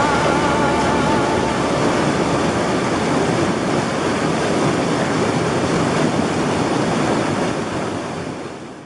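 Flash-flood torrent of muddy water rushing over boulders in a stream bed: a steady rush of water, fading out near the end.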